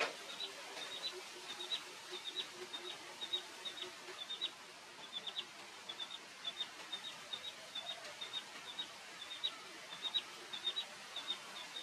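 Young chicken peeping: short, high chirps repeated steadily in twos and threes.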